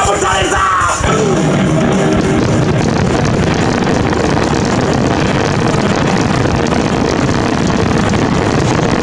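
Fireworks finale: dense, continuous crackling and bursting from aerial shells and ground fountains firing together, with music playing.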